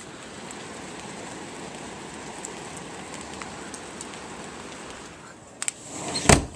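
Steady rain falling, an even hiss that fades out about five seconds in. Near the end come two sharp clicks and then a loud thump, the loudest sound here.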